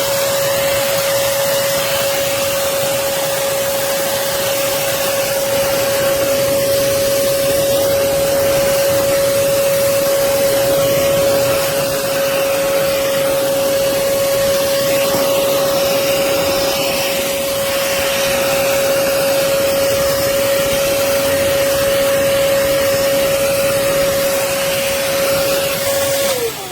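Hoover Commercial PortaPower CH30000 canister vacuum running, a steady whine over the rush of air as it picks up dust and spider webs. The motor winds down at the very end as it is switched off.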